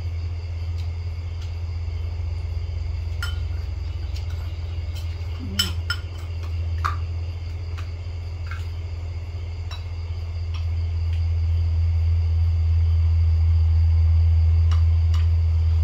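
Spoons clinking now and then against china plates and bowls as two people eat, over a steady low hum that grows louder toward the end, with a faint steady high ringing of insects.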